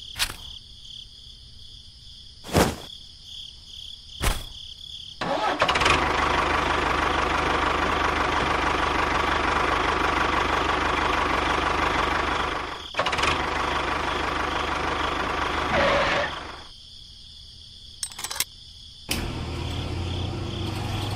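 Small engine starting after a few sharp clicks. It runs loud for about eleven seconds with a brief dip in the middle, cuts back about 16 seconds in, then runs again more quietly at idle near the end.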